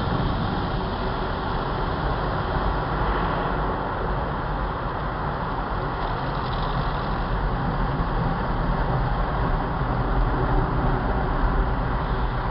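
Car wash machinery running: a steady rushing noise over a low rumble, without breaks.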